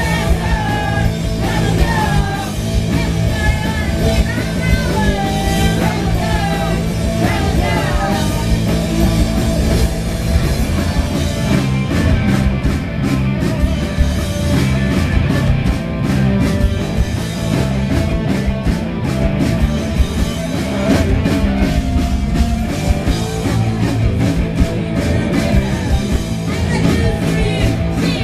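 Live rock band playing loud, with distorted electric guitars, bass and drums. A singer's voice comes through in the first several seconds and again near the end, with steady drum and cymbal hits in between.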